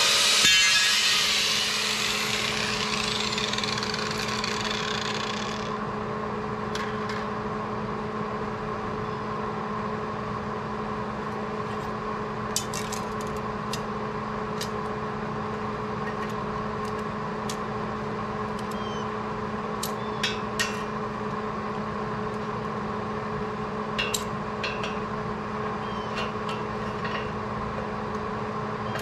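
Angle grinder on a steel channel shutting off just after the start and spinning down over the next few seconds. After that a steady machine hum runs on, with scattered light clicks and taps.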